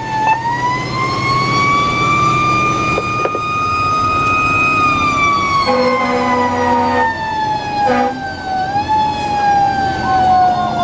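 Fire truck's mechanical siren, heard from inside the cab: it winds up in the first few seconds, holds its pitch, then coasts slowly down. Two horn blasts cut in, a long one about six seconds in and a short one near eight seconds.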